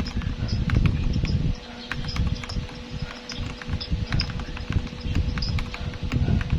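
Typing on a Royal Kludge RK84 mechanical keyboard with linear Gateron Milky Yellow switches and PBT keycaps: a quick, irregular run of keystroke clacks, a little softer from about a second and a half in.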